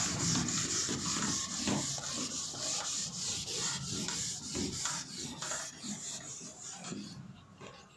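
A board eraser rubbing back and forth across a whiteboard, wiping off marker writing in quick repeated strokes that tail off over the last few seconds.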